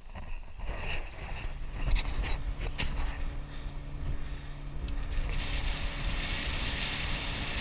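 A boat under way: its engine hums steadily, with wind buffeting the microphone and water rushing. There are a few knocks about two to three seconds in, and the rushing hiss grows louder about five seconds in.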